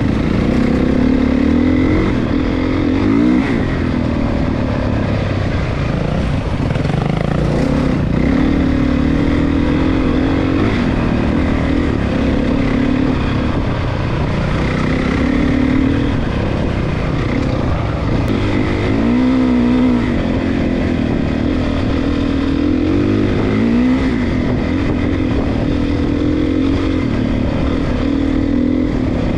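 A 450 cc single-cylinder four-stroke dirt bike being ridden, its engine pitch rising and falling every few seconds as the throttle opens and closes.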